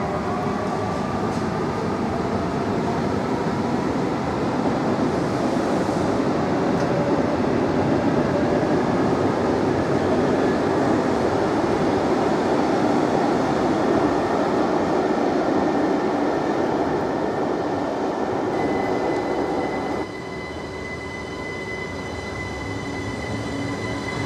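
Electric passenger train moving through a station. A falling whine of the motors comes in the first second or so, then a steady running noise swells to its loudest around the middle. About twenty seconds in the level drops suddenly, and a steady high-pitched tone carries on over a quieter run.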